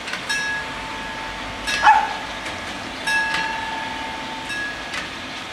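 Italian level-crossing warning bells (FS 64 crossing, two bells) ringing, struck repeatedly at an uneven rhythm with a lingering metallic tone, as the crossing warns of an approaching train. One louder, sharper sound about two seconds in.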